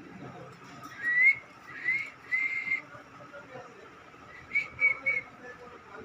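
Clear whistling: three rising whistled notes in the first three seconds, the last one held longer, then three short quick notes about four and a half seconds in.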